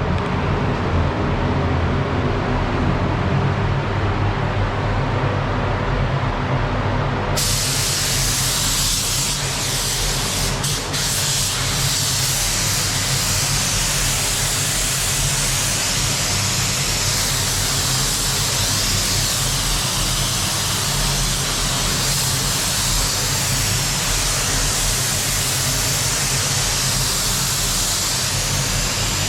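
A steady low hum. About a quarter of the way in, a paint spray gun starts hissing with compressed air as it sprays base coat, and it keeps going evenly almost to the end.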